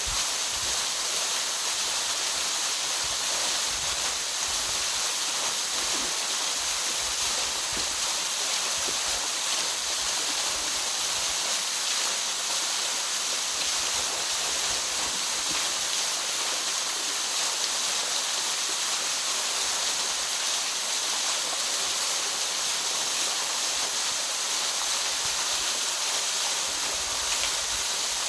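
Steady rushing of running water: an even, unbroken hiss with most of its energy in the high range and no change in level.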